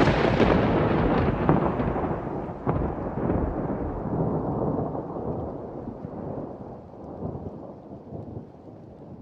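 A peal of thunder, already loud at the start, rolling with a few sharp cracks in its first three seconds, then rumbling and slowly dying away.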